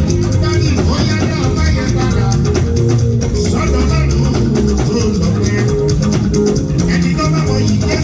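Loud band music with a strong bass line and a steady beat.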